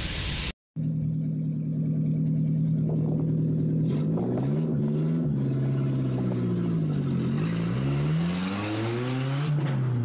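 Toyota AE92 Corolla's four-cylinder engine idling steadily, then revved up and let back down several times, heard from inside the cabin.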